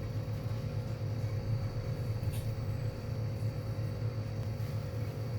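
Refrigeration compressor running with a steady low hum and a faint, steady high whine above it.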